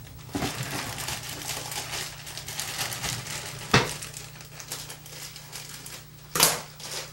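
Plastic bag of brown rice crinkling as it is handled, with a sharp knock about four seconds in and a louder knock a little after six seconds.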